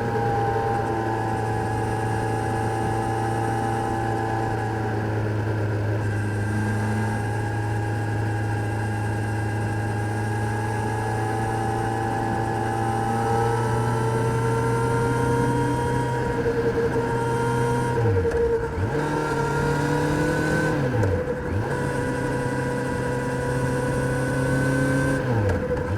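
Kawasaki Z900's inline-four engine running at steady revs under way, with wind rushing past. In the last third the engine note drops and climbs back three times in quick succession.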